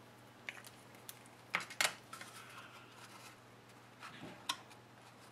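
Scattered light clicks and taps from handling a liquid glue bottle and cardstock, the sharpest pair about a second and a half in and one more near the end.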